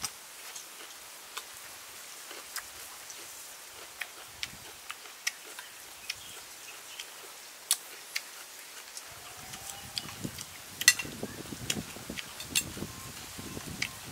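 A person eating cooked snails: sharp wet mouth clicks and smacks scattered throughout. From about nine seconds in, denser, lower chewing and handling noise joins them.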